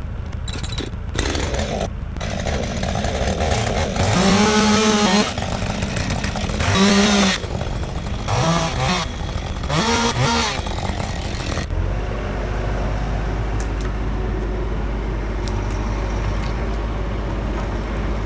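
Chainsaw revved up four times as it cuts through a fallen dead ash tree, each rev rising and then falling back. After that, a steady low engine hum with no revving.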